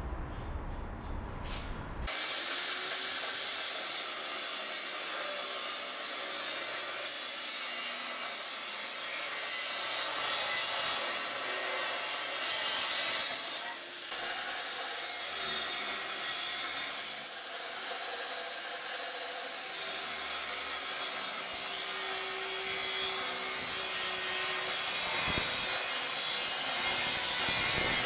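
Angle grinder with a cut-off disc cutting through steel angle, a steady abrasive hiss with short breaks partway through, starting about two seconds in.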